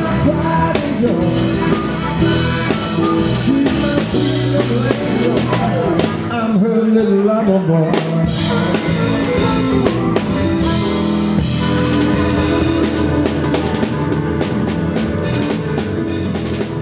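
Live band playing: drum kit, electric guitar, bass, keyboards and harmonica together.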